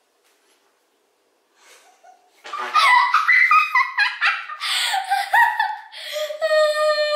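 A young girl laughing hard and high-pitched, breaking out after a couple of seconds of near silence and ending in a long, held high squeal.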